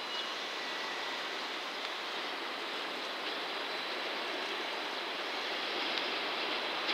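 An EF210 electric locomotive with a container freight train rolling slowly toward the listener over the pointwork. It is a steady rushing rumble that grows slightly louder, with a faint thin high tone above it.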